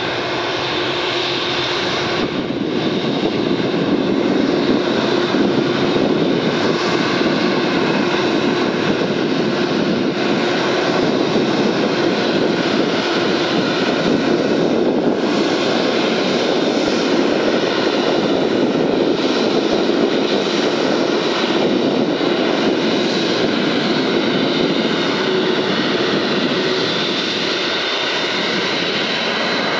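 Boeing 747-8F's four GE GEnx-2B turbofans running at low power as the freighter taxis: a steady jet whine over a continuous rush, growing slightly louder in the first few seconds.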